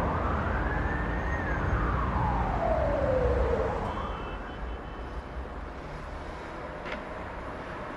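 Emergency vehicle siren in a slow wail, rising and falling once over low traffic rumble, then fading after about four seconds into the steady rumble of traffic.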